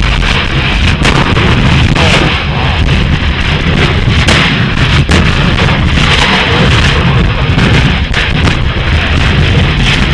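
Lava entering the sea with a run of sharp mortar-like explosions, several booms a second or more apart. Under them runs a constant loud rushing rumble.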